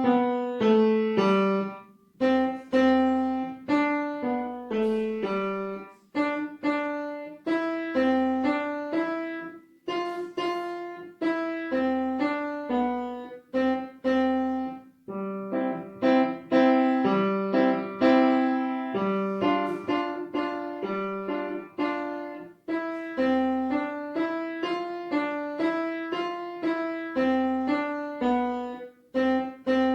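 Piano playing a simple beginner melody in middle-C position, one note at a time around and just below middle C, each note struck and left to fade, in short phrases with brief breaks between them.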